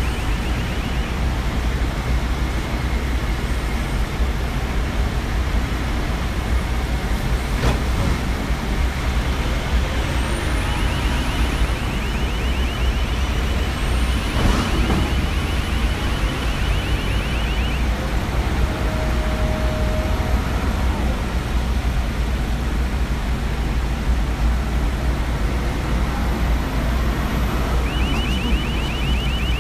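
Diesel-driven straddle carriers running with a steady low engine rumble. A rapid pulsing warning beeper sounds for several seconds about a third of the way in, and starts again near the end.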